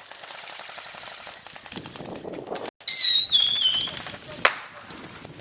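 Airsoft guns firing, a rapid stream of sharp clicking shots. About 3 s in comes the loudest sound, a shrill high-pitched cry that steps down in pitch over most of a second, and a single sharp crack follows about a second and a half later.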